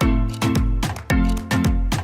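Upbeat background music with a strong dance beat and deep drum hits that slide down in pitch.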